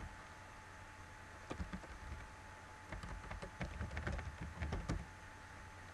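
Computer keyboard typing: a few keystrokes about a second and a half in, then a quicker run of keystrokes between about three and five seconds.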